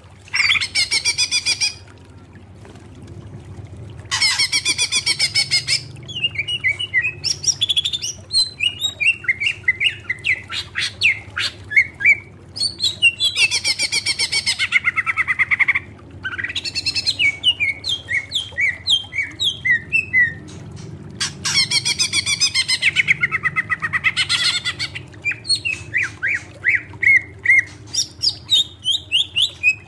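Cucak ijo (green leafbird) singing: bursts of very fast rattling trills alternate with runs of quick, separate whistled notes, over a faint low hum.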